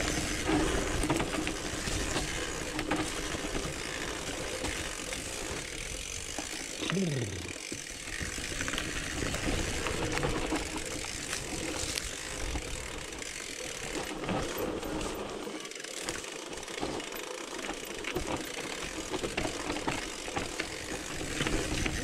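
Cross-country mountain bike riding down a rough dirt forest trail: a continuous clatter of small knocks and rattles from the bike over tyre noise on the ground, with a brief falling tone about seven seconds in.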